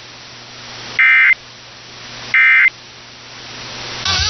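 Emergency Alert System end-of-message data bursts: short, shrill digital screeches of two-tone data, repeated about a second apart, marking the end of the alert. Steady hiss and a low hum lie between them, and a brief warbling burst of other audio comes near the end.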